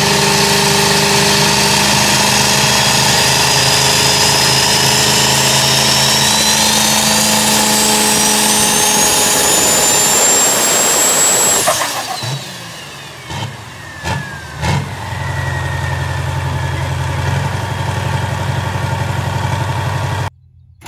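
Mack E9 V8 diesel engine running hard with a high whine that rises in pitch. Near the middle the sound drops away abruptly, a few sharp knocks follow, and the engine settles into a quieter, steady idle.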